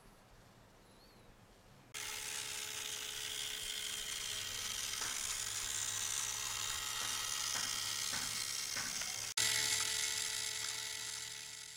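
Small battery-powered electric motor and gearbox of a model pedal boat whirring steadily, a buzzing whine over a hiss. It starts suddenly about two seconds in, breaks off for an instant about nine seconds in, and fades out at the end.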